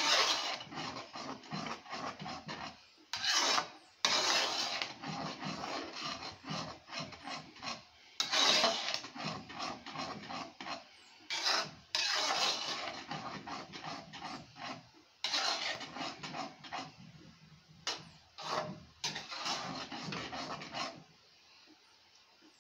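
A flat stirring spoon scraping around a metal pot of thick porridge, in repeated rasping strokes with short pauses, stopping near the end.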